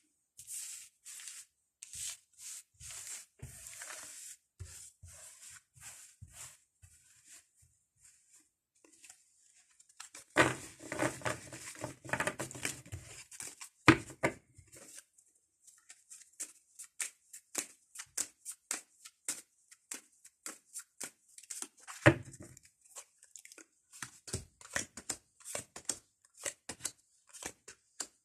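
Fortune-telling playing cards being handled and laid out on a table: a long run of short flicks and rustles, with a denser stretch of shuffling about ten seconds in and a couple of sharper taps of cards set down.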